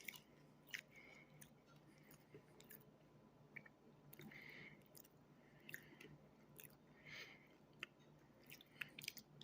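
Faint close-up chewing of chapulines (toasted grasshoppers), with irregular crisp crunches and clicks.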